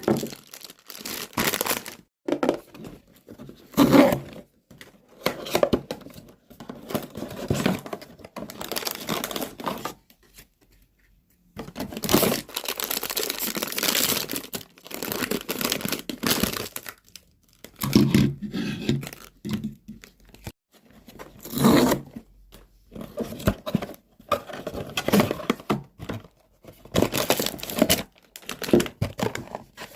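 Figure packaging being torn open and crinkled by hand, in irregular rustling bursts with a short pause about a third of the way in.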